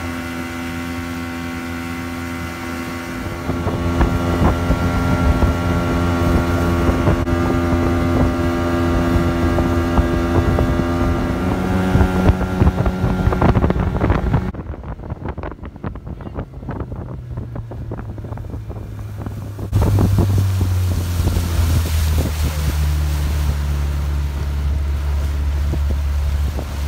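Small motorboat's engine running under way, with wind on the microphone. The engine gets louder three or four seconds in and changes pitch near the middle. It turns duller for several seconds, then settles into a steady low drone.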